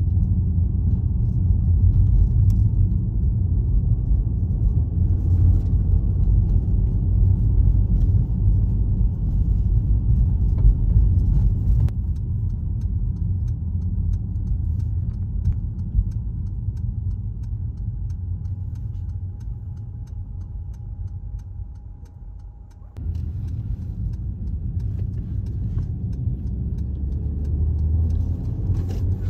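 SUV driving on a highway: a steady low rumble of road and engine noise, changing abruptly about twelve seconds in and again a little past twenty seconds.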